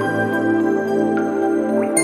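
Slow instrumental background music: a held chord with a few soft high notes entering, the chord changing at the very end.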